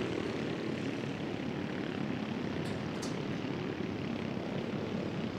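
Engines of a pack of junior off-road race karts buzzing as they race over a dirt track, a steady drone.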